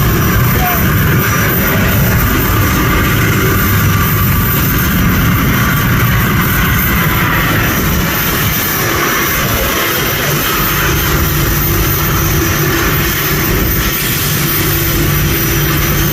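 Boeing 737 jet engines running steadily during the landing rollout on a wet runway: a loud, even rush of noise with a low rumble beneath. A steady low hum comes in about two-thirds of the way through.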